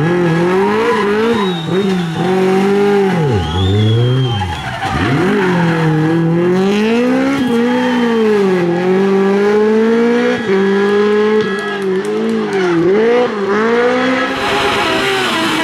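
Rally car engine at full effort, its pitch swinging up and down again and again with throttle and gear changes as the car is driven hard through the stage, with short bursts of tyre squeal.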